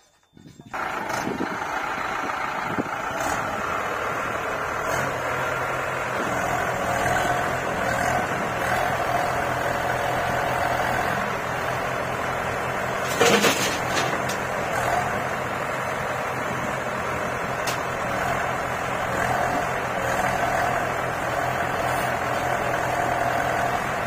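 Diesel engines of a JCB 3DX backhoe loader and a Mahindra 575 DI tractor running steadily. The engine sound starts abruptly under a second in, with a brief sharp knock about halfway through.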